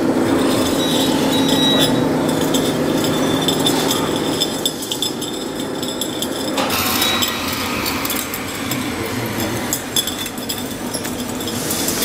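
Radio-controlled scale CAT single-drum roller running, a steady mechanical hum with light clinking and clicking. The hum drops and changes about four and a half seconds in.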